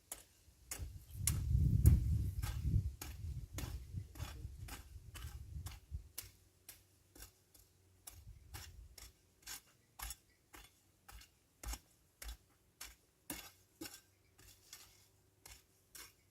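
A garden weeding tool scraping and chopping the soil in short, even strokes, about two a second, with a low rumble for the first few seconds.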